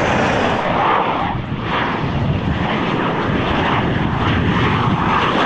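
Loud, steady noise of a fixed-wing aircraft's engine.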